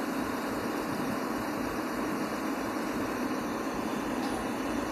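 Engines of heavy pipelaying and earthmoving machines running steadily, a continuous even engine noise with no sudden changes.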